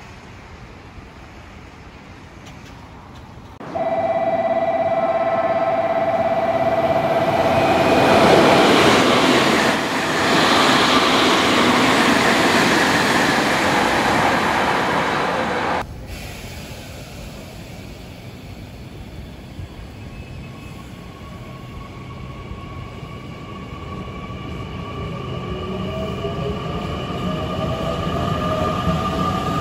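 A train passing through a station platform: a sudden loud rush of running noise that swells and then cuts off, opening with a few seconds of steady warning tones. Later an electric train's whine rises slowly in pitch and loudness near the end.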